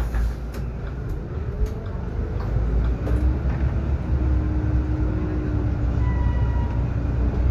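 Solaris Urbino 18 IV articulated bus heard from inside while driving: a steady low rumble, with a few short clicks in the first two seconds and a whine that rises about two seconds in and then holds steady.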